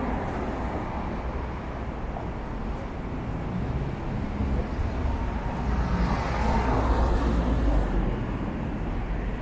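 City street traffic rumbling steadily, with a vehicle passing close by that swells louder about six to eight seconds in.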